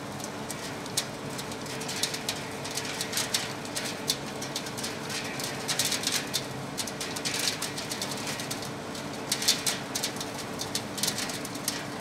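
Small feed pellet plant machinery running with a steady hum, while pellets pour from the discharge chute and clatter onto a pile in irregular clusters of sharp ticks.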